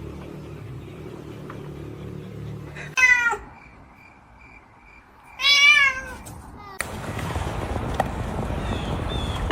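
A cat meowing loudly twice: a short falling meow about three seconds in, then a longer, wavering meow a couple of seconds later.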